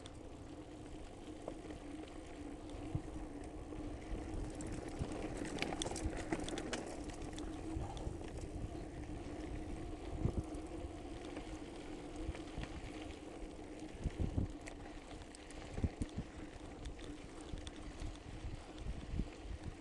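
Mountain bike rolling downhill over a dirt and gravel track, recorded from on board: a steady rush of wind noise and tyre and frame rattle, with scattered sharp knocks as the bike goes over bumps, more of them in the second half.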